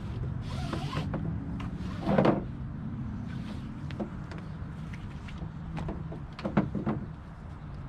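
Nylon webbing strap being fed through a kayak seat frame: rustling and sliding of the strap, with a louder scrape about two seconds in and a few light knocks near the end.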